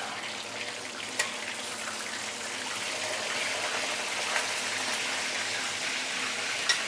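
Black pomfret deep-frying in hot oil in a stainless steel wok, a steady sizzle that grows a little louder after a few seconds. A metal spatula clinks sharply against the wok about a second in and again near the end.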